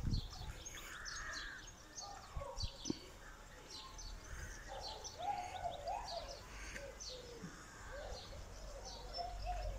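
Small birds chirping: many short, high calls scattered throughout, with a few lower, wavering calls around the middle, over a steady low rumble.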